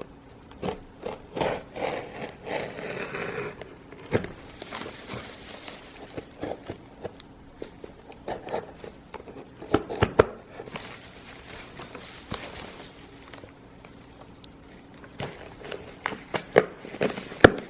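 Shipping package being opened and unwrapped by hand: irregular crinkling, rustling and scraping of packing material with small knocks and clicks.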